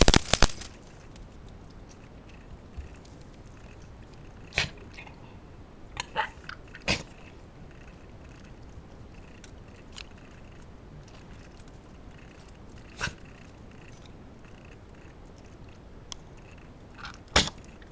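A Shiba Inu making a handful of short animal noises: one louder burst at the start, then five brief sounds spread several seconds apart, with quiet between them.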